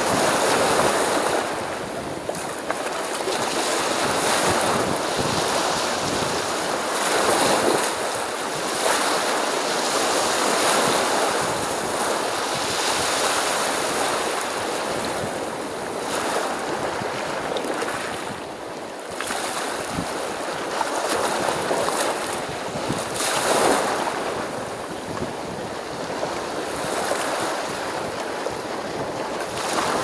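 Black Sea surf: waves breaking and washing on the shore, a steady rush of water that swells and ebbs every few seconds.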